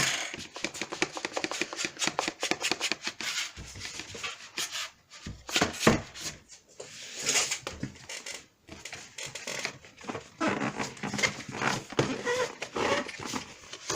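Cardboard packaging being handled: an inner box pushed and slid out of the outer box, with a quick run of rubbing, scraping and knocks of cardboard.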